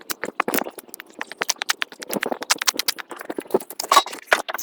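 Footsteps crunching on a gravel driveway, an irregular quick run of crunches and scuffs.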